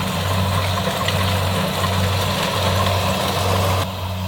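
Kubota DC70 combine harvester running under load in a rice field: a steady diesel drone with a broad mechanical rush above it. The higher part of the sound drops away suddenly near the end.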